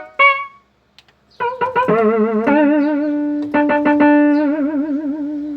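Yamaha DX21 four-operator FM synthesizer playing a bright, electric-piano-like patch during a sound test after repair. A note dies away, and after a short pause come a few quick notes, then a long held note with vibrato.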